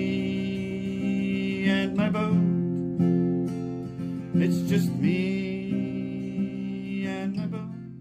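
Background music led by a strummed acoustic guitar, with sustained chords, fading out near the end.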